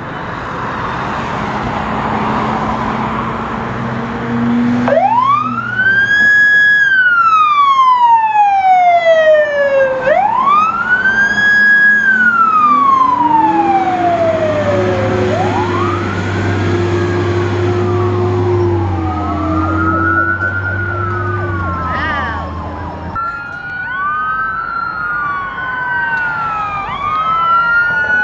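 Fire engine siren wailing: each cycle rises quickly and falls slowly, over the truck's engine running, and the wails grow shorter as it moves on. In the last five seconds an ambulance siren comes in with a faster wail, its sweeps overlapping.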